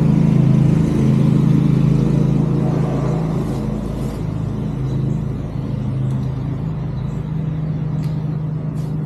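A steady low mechanical hum, like a motor or engine running, with a few faint light clicks near the middle and end.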